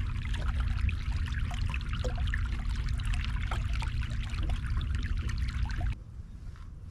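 Water trickling and splashing against a kayak hull: a dense crackle of small drops over a low rumble and a faint steady hum. It cuts off abruptly near the end, leaving quieter lapping.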